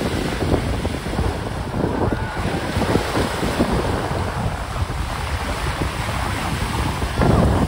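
Sea surf breaking and washing up the shore, with wind buffeting the microphone; a louder rush near the end.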